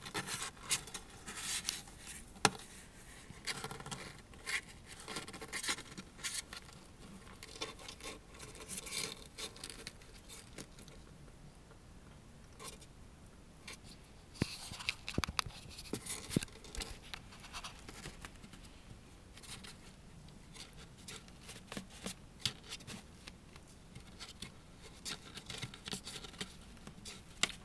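Kitten's claws scratching and scraping at a cardboard box and rustling the pad and blanket under it, in irregular bursts with sharp clicks.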